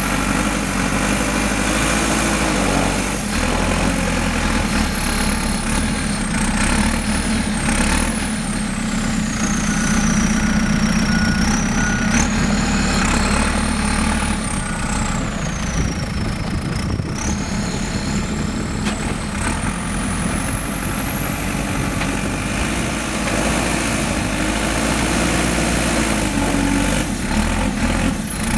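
2008 JCB 3CX backhoe loader's diesel engine running at a steady idle.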